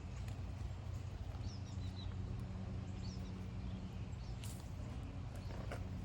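Quiet outdoor ambience with a steady low hum, a few faint high bird chirps about a second and a half in and again around three seconds, and a soft click or two.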